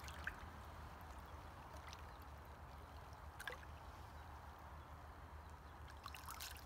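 Faint lake water lapping and gurgling around a carp held in the water at the bank, with a few small splashes and clicks, most of them near the end.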